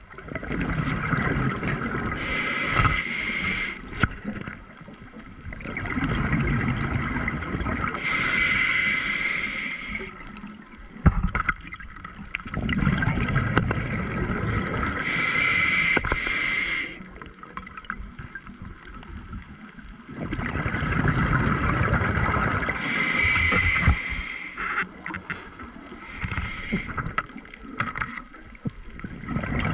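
Scuba diver breathing through a regulator underwater: slow cycles of hissing inhalation and rumbling, gurgling exhaled bubbles, about four breaths. A few sharp clicks sound between the breaths.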